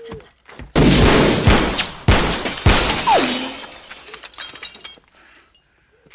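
Gunshots in a film shootout with glass shattering: a sudden crash of breaking glass about a second in, then three more sharp shots roughly half a second apart. The falling glass and debris tail off over the next couple of seconds.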